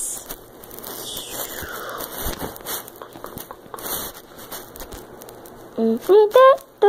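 Rustling and crackling handling noise from a phone being rubbed and shifted in the hand over its microphone, with a few soft knocks. Near the end a voice starts singing a few held notes.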